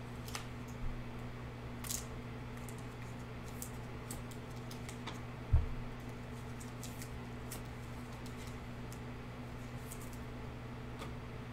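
Light clicks and ticks of trading cards and clear plastic card sleeves being handled and shuffled, over a steady low hum, with one low thump about five and a half seconds in.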